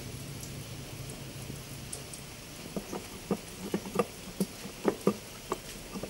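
Steel rod used as a drift inside a Mitsubishi 4D56 manual transmission case, knocking on metal parts: sharp metallic taps that start about three seconds in and come two to three a second.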